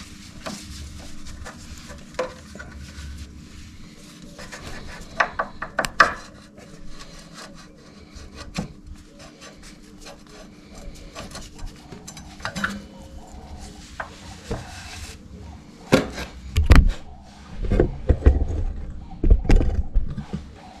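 Motorcycle front brake caliper being handled and worked off the disc: metal parts rubbing and scraping, with scattered clicks. A run of louder knocks and clunks comes near the end.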